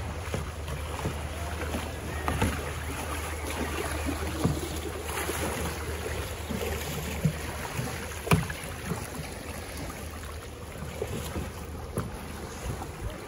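Kayak paddles dipping and splashing over the rush of a shallow creek running across rocks, with wind on the microphone. A few sharp knocks come through now and then.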